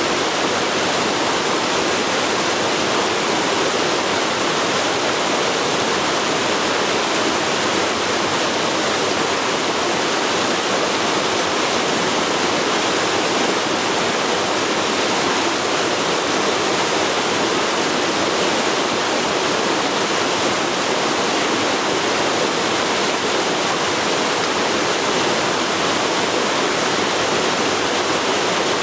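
Forest river flowing, a steady even rush of water with no breaks.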